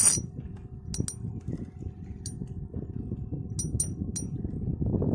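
Steady low rumble of a small boat at sea with a faint even hum, broken by a handful of light metallic clinks, the loudest right at the start and three in quick succession later on.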